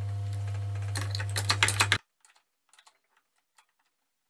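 Steel parts of a homemade bench vise being handled: a quick run of metallic clinks and rattles as the sliding jaw and its steel guide rods are moved. A steady low hum sits under it, and both cut off abruptly about halfway through, leaving only a few faint metal taps.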